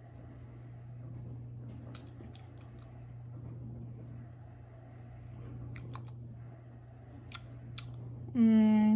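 A person sipping the strawberry soybean drink and chewing its soft jelly pearls: quiet mouth sounds with a few small clicks, then a loud hummed "mmm" near the end. A steady low hum runs underneath.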